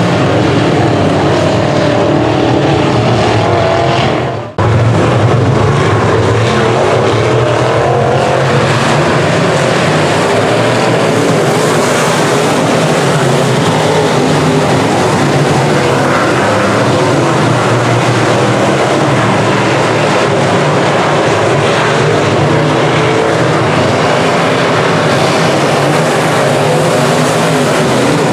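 Several semi-late model dirt-track race cars' V8 engines running together on the track, loud and steady with shifting pitch as they go around. A brief sharp drop in the sound about four and a half seconds in.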